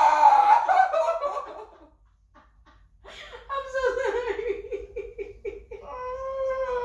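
Hard laughter for about two seconds, then after a brief lull a long, whining, cry-like voice that settles onto one held note.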